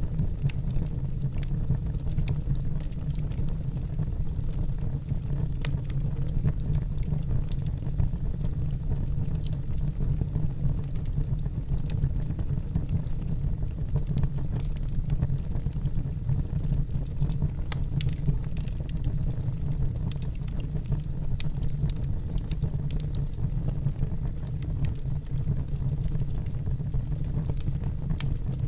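Wood campfire burning in a fire pit: scattered sharp crackles and pops over a steady low rumble.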